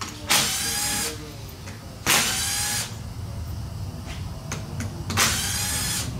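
Cordless power driver spinning out the clutch pressure plate bolts on a dirt bike engine, in three short runs of under a second each, with light metal clicks between them.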